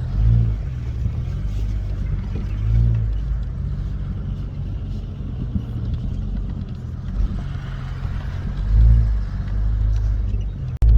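Off-road vehicle engine running at trail speed, a steady low drone that swells briefly with a bit more throttle a few times, most strongly near the end.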